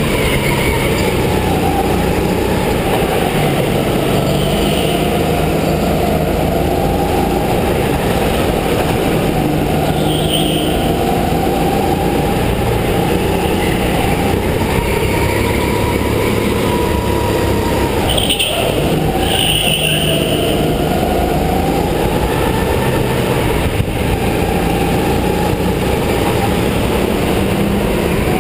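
Go-kart motor heard from the driver's seat while lapping, its pitch slowly rising and falling as the kart speeds up and slows through the corners, with a few brief higher hisses.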